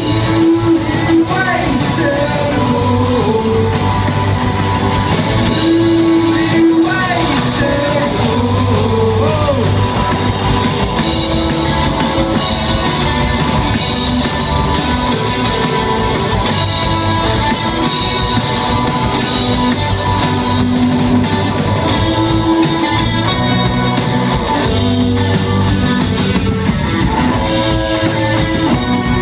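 Live rock band playing loud: electric guitars and a drum kit with a steady beat, heard from the crowd in a concert hall.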